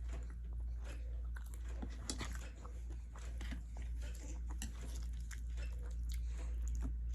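Close mouth sounds of a person chewing a mouthful of cheesy ramen noodles, with many small irregular clicks. A steady low hum runs underneath.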